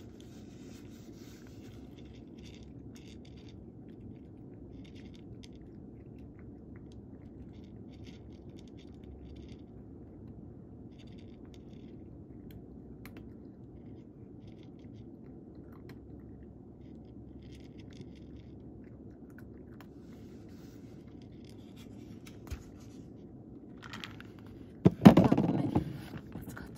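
A cat crunching dry kibble from a dish: faint, scattered small crunches and clicks over a steady low room hum. Near the end a cardboard carton of dry cat food is handled and set down beside the dish, a loud rustling clatter lasting about a second.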